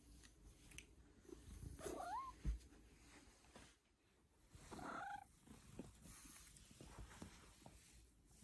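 Long-haired cat purring faintly as it is rubbed, giving two short gliding calls, about two seconds in and again about five seconds in. A brief soft thump comes just after the first call.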